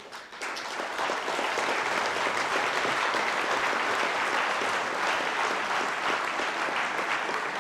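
Applause from a large seated audience of several hundred in a hall, swelling up over the first second and then holding steady.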